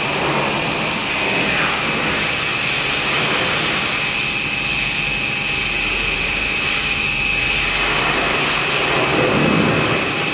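Steady, loud machine noise in a car service workshop: an even hiss with a thin high whine held over it, like a blower, vacuum or compressed-air tool running.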